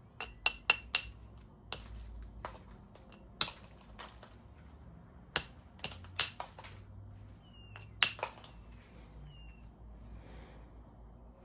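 Knapping tool striking the edge of a stone being knapped: around a dozen sharp, irregularly spaced clicks and clinks, several close together, a few with a short high ring, while a striking platform is set up.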